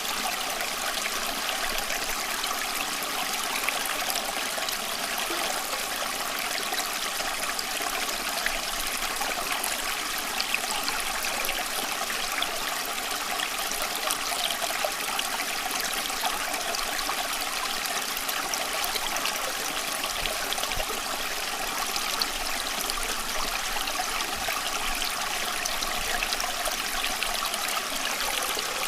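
Water running steadily, an even trickling, splashing hiss with little low end.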